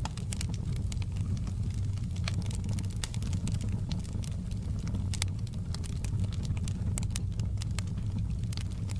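Wood fire burning in a fireplace: a steady low rumble with frequent small crackles and pops scattered irregularly.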